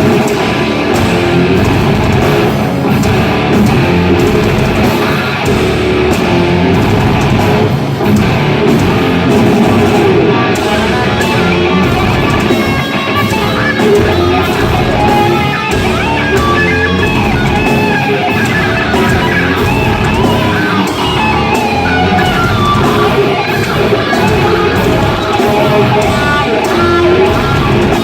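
Heavy rock played live: distorted electric guitar riffing over a drum kit.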